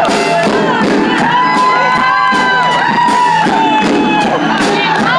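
Live band playing with a steady drum beat while the audience cheers, screams and whoops.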